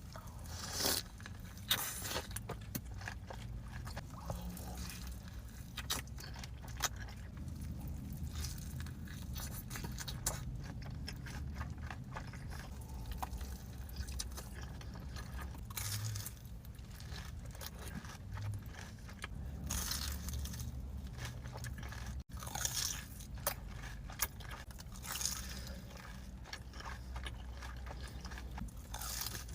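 Crunchy bites and chewing of fast food, heard close up, with irregular crisp crunches spread through the stretch.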